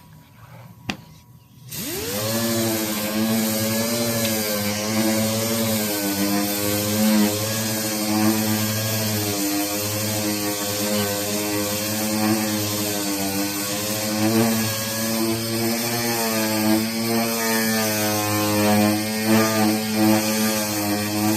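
An electric or air power tool in a body shop, likely a sander or grinder: a click about a second in, then the motor starts about two seconds in and runs steadily, its pitch wavering slightly as it works.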